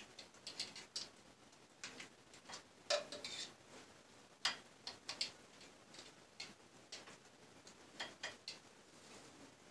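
Faint, irregular clicks and taps of a utensil against a mayonnaise jar and a plate as mayonnaise is scooped out and spread over the salad.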